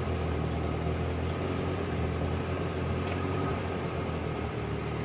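A vehicle's engine idling steadily, heard from inside the cabin as an even low hum.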